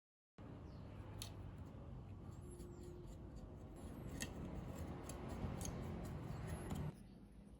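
Small scraping, rubbing and light clicking sounds of hand work on a graphics card, starting abruptly and dropping away near the end.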